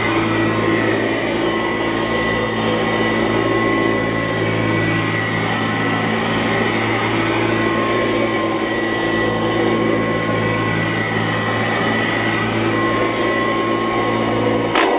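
Hoover Tradition upright vacuum cleaner with a shake-out cloth bag, running steadily with a constant high whine over a low motor hum as it makes repeated passes over carpet. It switches off with a click near the end.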